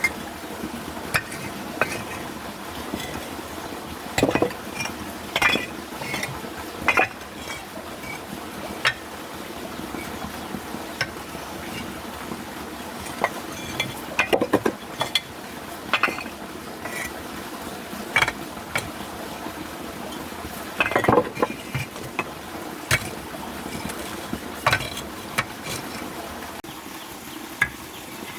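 Irregular clinks, taps and scrapes of hard objects being handled, with a few louder knocks, over a faint steady hum.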